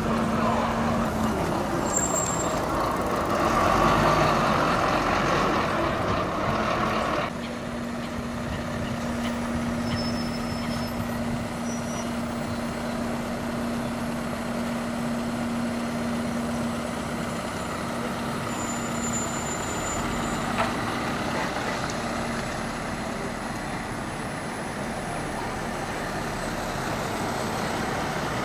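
London double-decker buses pulling away and turning at low speed, engines running with a steady low hum. About seven seconds in the sound drops abruptly, and a New Routemaster diesel-electric hybrid bus is heard moving slowly through a junction.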